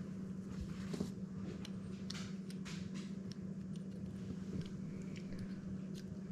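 Light clicks and handling noises of a Shimano Calcutta Conquest BFS baitcasting reel's metal parts being worked apart by hand, over a steady low hum.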